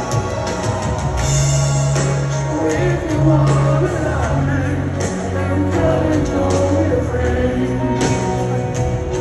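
Live rock band playing a slow ballad through a stadium PA, with piano and electric guitar over sustained low bass notes and a sung vocal line, heard from within the crowd.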